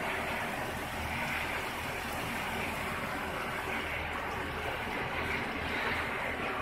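Continuous snack fryer line running: a steady machine noise with a low hum and a hiss, without breaks.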